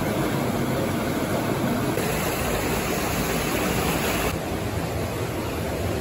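Waterfall pouring into a rock pool: a steady rush of falling water, slightly softer in the last second or two.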